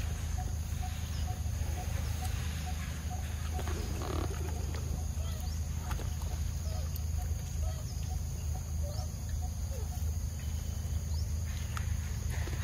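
Macaque eating a mango close to the microphone: wet chewing and a few scattered smacks and clicks, over a steady low rumble.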